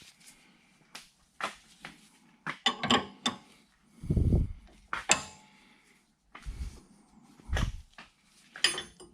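Irregular metallic clinks and clanks of a wrench and socket against suspension nuts and bolts as they are checked for tightness, with a few dull low thumps between them.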